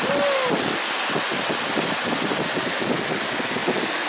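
Steady rush of a waterfall mixed with wind buffeting the microphone, with a short cry that falls in pitch right at the start.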